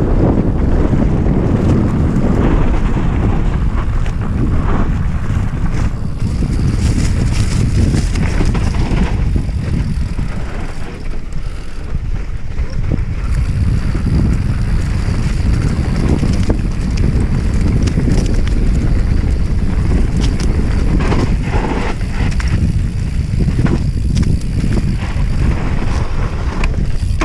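Loud wind rumble buffeting the microphone during a fast downhill ride, with scattered rattles and clatter from the rough trail.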